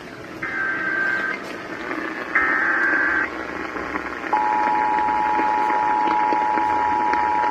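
Emergency Alert System test on a radio broadcast: two roughly one-second bursts of SAME header data screech, then the two-tone EAS attention signal starts a little over four seconds in and holds steady.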